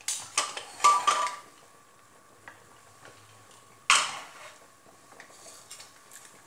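Aluminium pressure cooker lid scraping and clanking against the pot as it is turned and worked loose, with the pressure already released. One sharp metal clank near four seconds in as the lid comes out.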